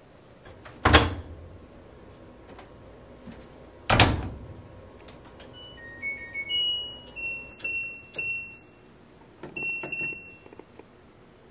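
Front-loading clothes dryer: its door shut with two heavy thumps, about a second and about four seconds in. Then a run of electronic beeps from its control panel as the buttons are pressed, first short beeps at several pitches, then longer single-pitched ones.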